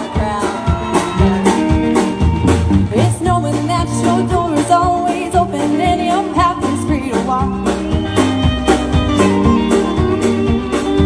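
Live country band playing an up-tempo song, with drums keeping a steady beat under the pitched instruments.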